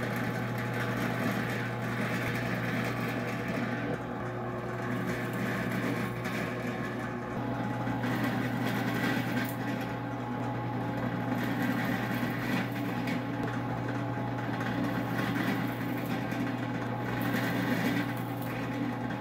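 Benchtop drill press motor running steadily with a constant hum while the twist bit is fed down into a pine strip, boring a row of holes.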